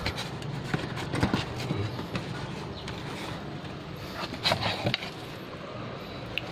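Cardboard oil-filter box and plastic bag being handled as a new spin-on oil filter is slid out of its box: rustling and scraping with a few sharp knocks, two of them close together about two-thirds of the way through.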